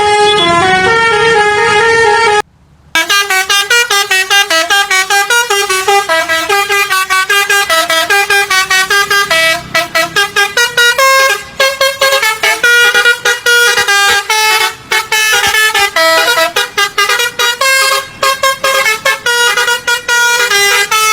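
Basuri telolet bus horn playing a tune: a few held notes, a brief break about two and a half seconds in, then a long fast run of short staccato notes.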